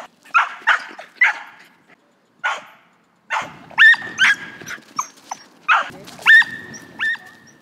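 A dog barking in short, sharp barks as it chases a squirrel, then giving a run of high-pitched yips from about three and a half seconds in.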